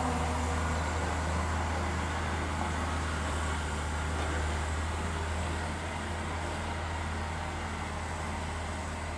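Distant M62 diesel locomotive's two-stroke V12 engine giving a low, steady drone as it approaches with a freight train, easing slightly about six seconds in.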